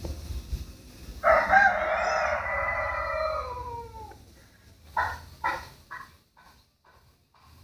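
A rooster crowing: one long call of about three seconds that drops in pitch at the end, followed by a few short sounds.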